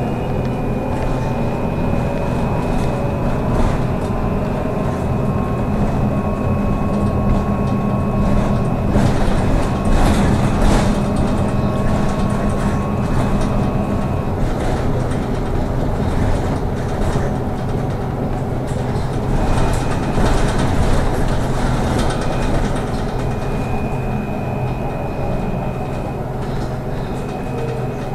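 Trolleybus driving in traffic, heard from inside: a steady rumble of road and tyre noise. Over it runs an electric-drive whine that rises in pitch in the first couple of seconds and then holds, with a thin high tone that drops out about halfway and comes back later.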